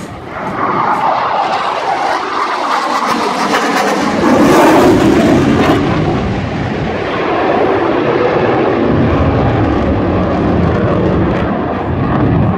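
Canadian CF-18 Hornet's twin General Electric F404 turbofans roaring as the fighter flies past. The roar swells, its pitch falls through the pass, it is loudest a few seconds in, and it then settles into a steady rumble as the jet moves away.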